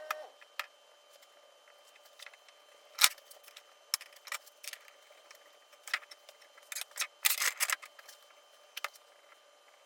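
Scattered light clicks and taps of hard objects being handled, with a sharper click about three seconds in and a quick run of clicks around seven seconds.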